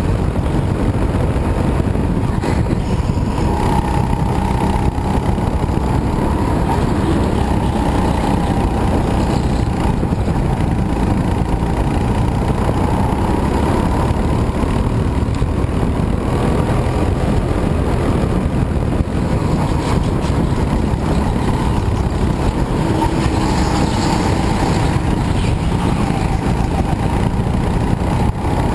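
Go-kart engine running hard from the driver's seat, its pitch rising and falling again and again as the kart brakes and accelerates through the corners, over a steady low rumble.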